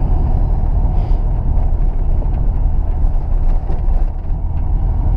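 Inside the cabin of a Volkswagen Gol with a 1.6 CHT engine driving on a wet road: a steady, low rumble of engine and tyres, with faint scattered ticks.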